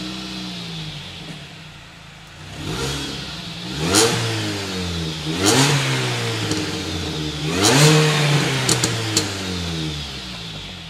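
A Mini Cooper S R53's supercharged 1.6-litre four-cylinder engine through its stock exhaust, idling and then blipped three times, each rev rising and falling. There are a couple of sharp clicks as the last rev dies away.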